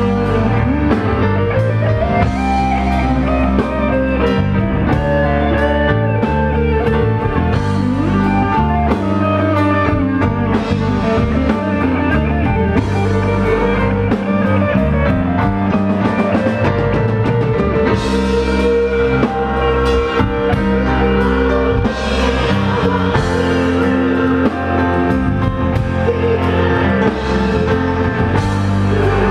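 Rock band playing live, electric guitar over bass and drum kit, in an instrumental stretch with no singing.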